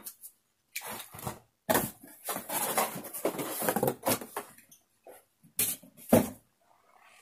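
A cardboard shipping box being opened and handled by hand: irregular rustling, scraping and knocking of cardboard in short bursts as a boxed vinyl figure is pulled out.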